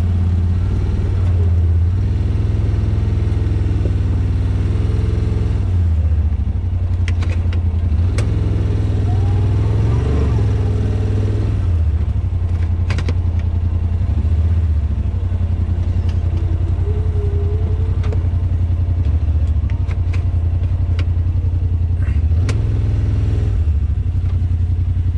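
Yamaha Wolverine RMAX 1000 side-by-side's parallel-twin engine running at low speed while crawling over rock, its pitch rising and falling a few times with the throttle. A few sharp knocks and clatter are heard along the way.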